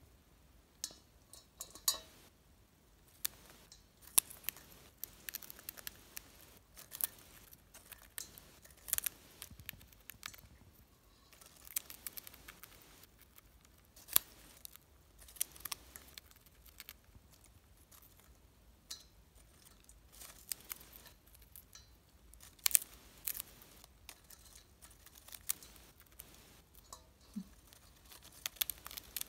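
Cockatiel eating popped popcorn from a stainless-steel bowl: irregular sharp crunches and beak clicks, sometimes several in quick succession.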